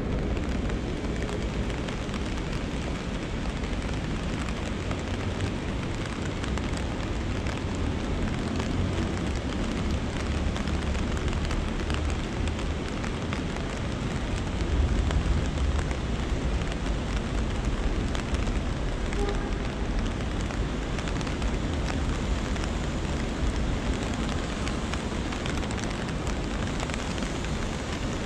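Steady rain falling, mixed with the flow of the stream's water, as one continuous even noise.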